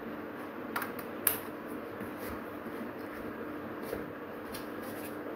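Small freshly sharpened scissors snipping paper: several short crisp snips, the sharpest about a second in, over a steady low hum.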